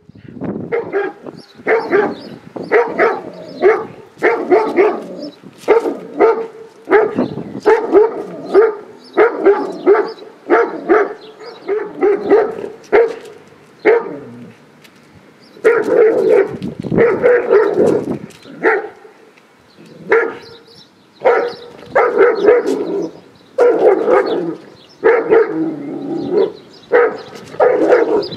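A leashed German Shepherd barking aggressively at a person, over and over in runs of barks broken by short pauses.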